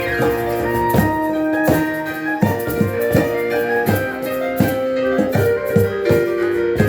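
Live instrumental music: a street piano with long held notes from wind instruments over a steady hand-drum beat.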